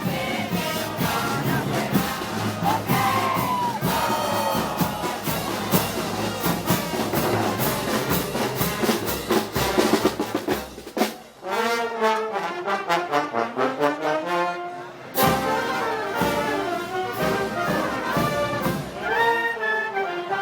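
Brass band playing festival march music: trumpets and trombones over a steady beat of drums and cymbals for the first half, then the brass carries the melody with the percussion dropping back, breaking off briefly and coming back in loudly.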